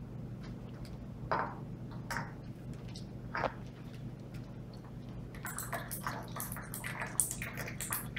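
Worcestershire sauce dripping and splashing from its bottle into a small measuring cup. A few separate drops come in the first few seconds, then a quicker run of drips from about five seconds in.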